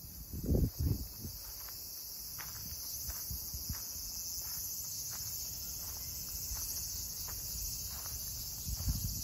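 Crickets chirping in a steady, high, continuous chorus. A few low thumps, the loudest sounds, come about half a second in.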